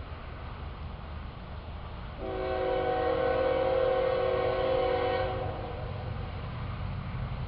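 Locomotive air horn sounding one long blast of about three seconds, several tones together as a chord, over the low rumble of an approaching train.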